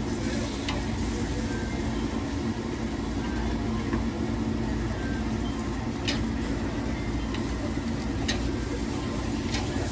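Steaks sizzling on a charcoal grill over a steady low mechanical hum, with sharp metal clicks now and then as tongs strike the steel grate and plate.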